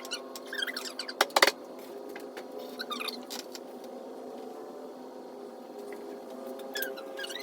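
Metal parts clinking sharply a couple of times about a second in, over a steady humming drone. Short, high squeaky chirps come here and there.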